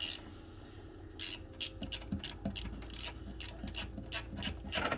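Phillips screwdriver backing a screw out of a microwave's sheet-metal vent panel: a run of short scraping strokes about three a second, with a louder scrape near the end.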